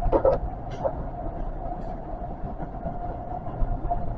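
Osaka Metro 400 series electric train running along the track, heard from the front cab: a steady low rumble with a steady humming tone over it, and a brief louder noise right at the start.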